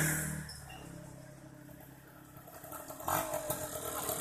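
Yamaha F1ZR two-stroke motorcycle approaching, its engine growing louder from about three seconds in with a fast, buzzy pulse. A louder sound fades away at the start.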